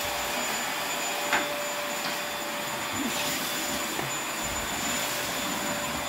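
Corded stick vacuum cleaner running steadily as it sucks up dry cereal from a hard kitchen floor. Its motor gives a constant hum with a thin, high whine, and there is one short click about a second and a half in.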